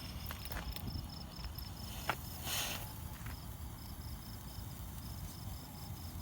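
Crickets chirping steadily in a fast, even rhythm, about four or five chirps a second, with a sharp click and then a brief hiss a little past two seconds in.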